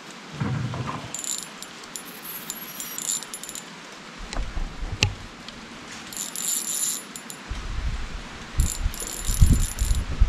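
Short bursts of light metallic clicking and jingling from fishing tackle being handled, three times, over a steady rain hiss, with low bumps against the microphone in the second half.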